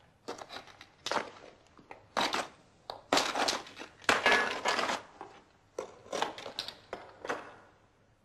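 Rubble and loose stone scraping and crunching as it is shifted by hand, in a dozen or so irregular bursts with short pauses between them.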